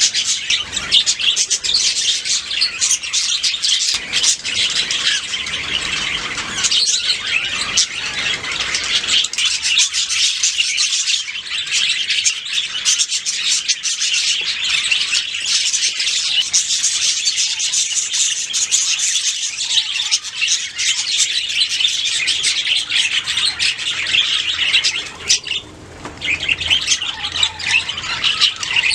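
Budgerigars singing and chirping in a continuous, busy warble of high chirps, with a brief lull about 25 seconds in.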